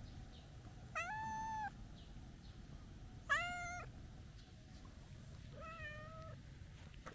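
Calico cat meowing three times, each meow short and held on one pitch, the second the loudest and the third softer.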